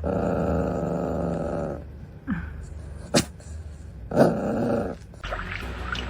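An animal's low, rough growling call, held for about two seconds at the start, with a shorter one about four seconds in and a sharp click between them.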